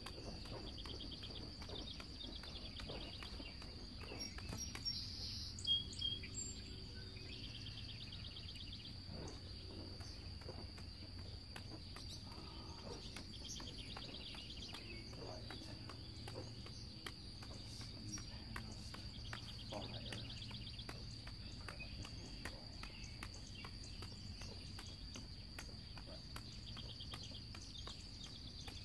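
Early-morning outdoor ambience: a steady high insect drone, with a bird trilling every few seconds and a louder burst of chirps about five seconds in. Faint regular taps come from the juggling torches being caught.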